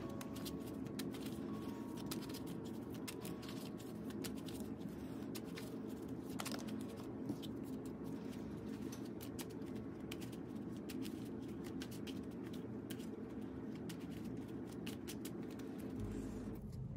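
A deck of plastic-sleeved trading cards being shuffled by hand: a quick, irregular stream of soft clicks and slides as the sleeved cards are pushed through each other, stopping shortly before the end, over a steady low hum.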